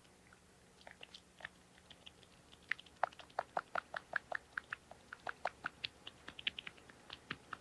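A cat lapping milk with its tongue: a quick run of small wet clicks, about three or four a second, starting sparse and settling into a steady rhythm.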